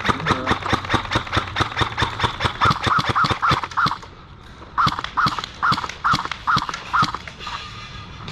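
Airsoft guns firing: rapid sharp clicking shots with short whirring tones, in two strings broken by a brief pause about four seconds in.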